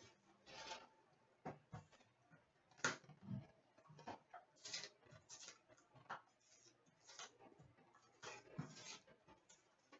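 Faint, scattered rustling, sliding and light taps of a cardboard trading-card box being handled and opened, with its paper insert and card packs taken out.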